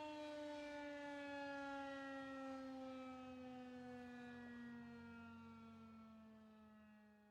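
Air-raid warning siren winding down: a single faint wail with many overtones, its pitch sliding slowly lower as it fades away, gone about six and a half seconds in.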